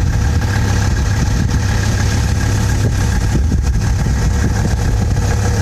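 A steady low engine-like drone with a faint steady whine above it, unchanging throughout.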